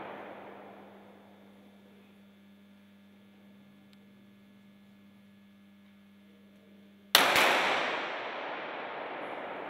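Low steady hum, then about seven seconds in two quick .22 sport-pistol shots crack out, followed by a long echoing wash that slowly dies away.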